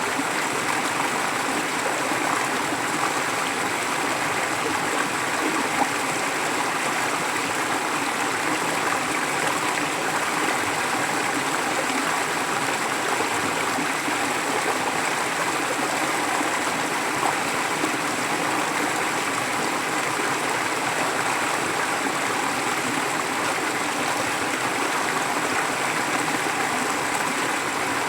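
A forest stream flowing steadily, an even rush of water with no pauses.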